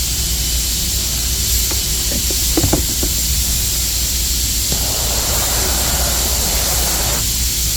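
MAPP gas torch burning with a steady hiss. A few light knocks come about two to three seconds in, and the hiss turns rougher for about two seconds from around five seconds in.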